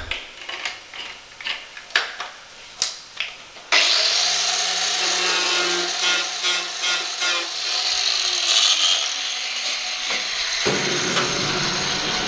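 A few light knocks and clicks of handling, then about four seconds in an angle grinder starts with a rising whine and runs steadily, loud, to the end.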